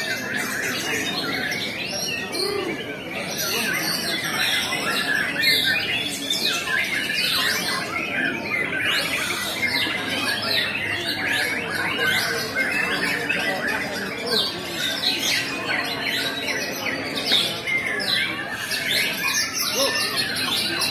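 Many caged songbirds singing at once in a songbird contest: a dense, overlapping chorus of rapid chirps and quick rising and falling whistled notes.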